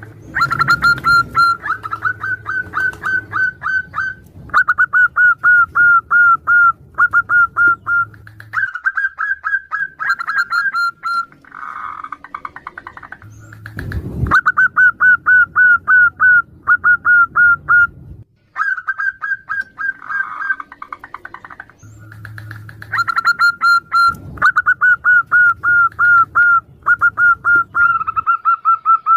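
Zebra doves calling back and forth, a female's call answered by a male: runs of quick, clipped cooing notes, several a second, each run lasting a few seconds. A single knock sounds about midway.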